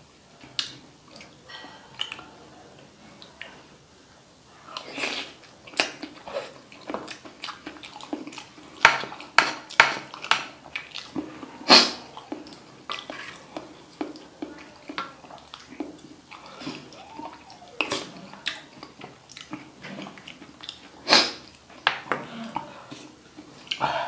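Close-miked wet chewing and mouth smacks of a person eating balut (boiled duck embryo) in spicy chili vinegar, with irregular sharp clicks and puffs of breath against the chili heat.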